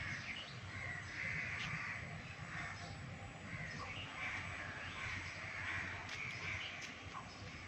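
Birds calling repeatedly, with short harsh calls coming about once a second over a steady outdoor background.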